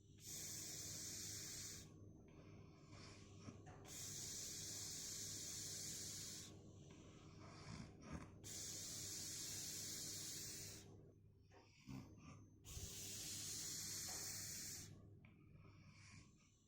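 A sleeper snoring softly, the breath hissing rather than rumbling: four long breaths about every four seconds, each lasting about two seconds, with quieter breathing in between.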